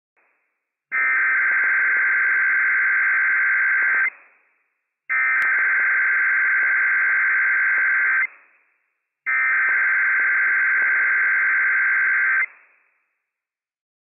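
Emergency Alert System SAME header from NOAA Weather Radio station WWF56: three identical bursts of buzzing digital data tones, each about three seconds long with about a second between them. The coded header sets off alert receivers and here marks the start of a Required Weekly Test.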